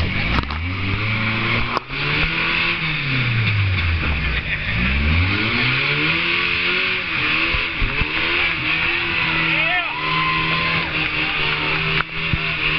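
Off-road buggy's engine revving up and down several times as it crawls over rocks, then holding a steady, higher speed for the last few seconds.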